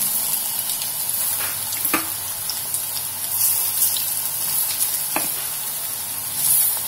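Onion-leaf and gram-flour bhajia batter deep-frying in hot oil in an aluminium kadhai as small dollops are dropped in by hand: a steady high sizzle with a few sharp crackles, swelling briefly near the end.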